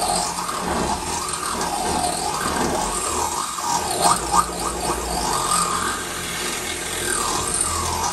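Cordless drill boring into the sheet-metal trunk lid to enlarge a mounting hole, using a bit smaller than ideal. The motor's pitch wavers up and down as the bit bites, and it stops abruptly at the end.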